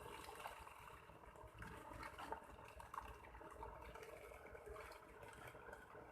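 Faint water splashing and trickling, steady throughout, with small scattered splashes.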